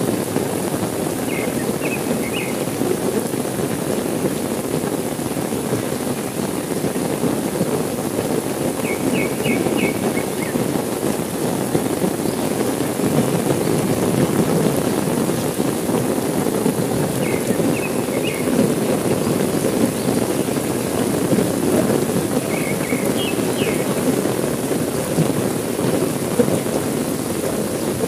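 Heavy rain falling steadily, a dense even hiss. Short groups of three or four faint high chirps come about every eight seconds.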